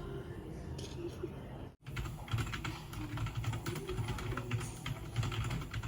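Rapid, uneven clicking of a computer keyboard being typed on, starting about two seconds in.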